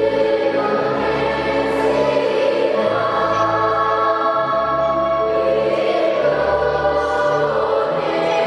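Children's choir singing long held notes, with low instrumental accompaniment underneath.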